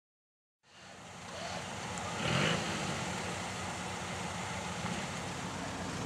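After a brief dead-silent gap, a vehicle engine running steadily, with a short louder swell about two seconds in.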